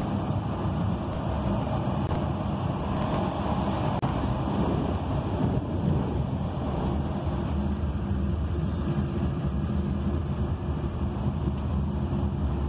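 Steady ride noise inside a moving tram: a continuous low rumble of the tram running along the rails.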